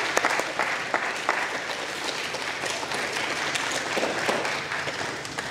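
Audience of students and staff applauding, a dense clatter of many hands clapping that gradually thins and dies down near the end.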